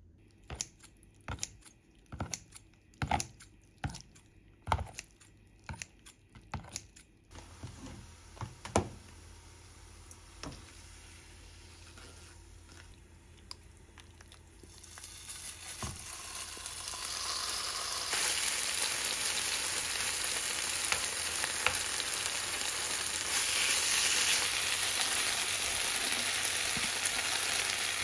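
A wooden spoon mixing marinated pork in a glass bowl gives a run of clacks. About halfway the pork goes into hot sesame oil in a frying pan and starts sizzling, louder a few seconds later and then steady.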